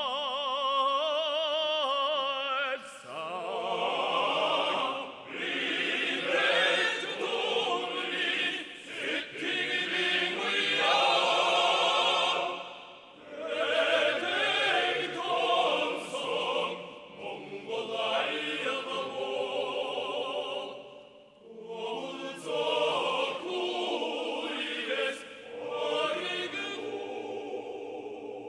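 A male soloist holds a long note with wide vibrato, then a full male choir comes in about three seconds in and sings on in long phrases, with short breaks between them.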